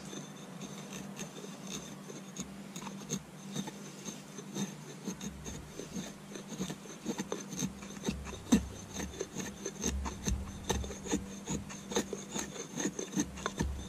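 Wenger Blades Beohawk axe blade, gripped up by the head, shaving curls down a stick of wood to make a feather stick: repeated short scraping strokes of steel on wood.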